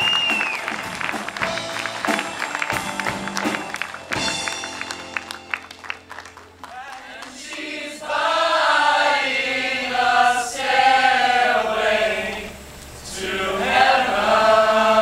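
Audience applause for the first few seconds, dying away; then, from about eight seconds in, a large group of voices singing together in chorus.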